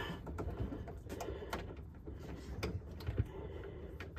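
Scattered light clicks and knocks of faucet mounting hardware being worked by hand up under a sink while the installer tries to snap it into place.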